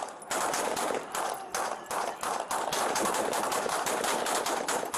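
A hail of handgun fire from several deputies shooting at once: many shots a second, overlapping with hardly a gap, recorded on a police body camera.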